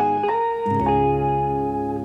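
Background music on a plucked string instrument: a few short notes stepping up in pitch, then one note held for about a second.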